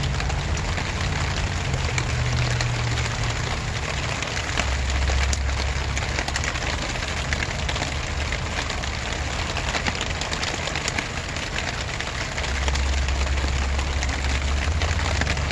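Steady rain falling, with many individual drops ticking sharply through it. A low rumble runs underneath and swells twice, about a third of the way in and again near the end.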